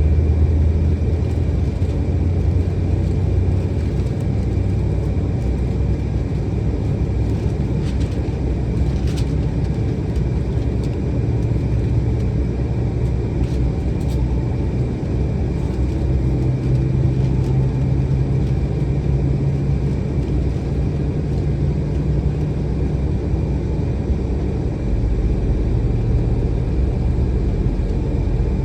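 Cabin noise inside an Embraer E175 airliner on the ground before takeoff: a steady low rumble with a faint high whine. Low hums step up in pitch around the middle, and there are a few light clicks.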